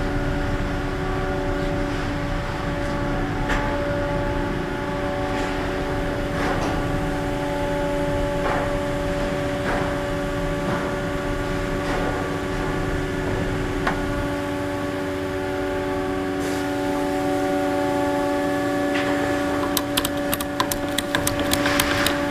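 A steady drone of several held tones with scattered light clicks. Near the end comes a quick run of sharp clicks from a ratchet tie-down strap being tightened.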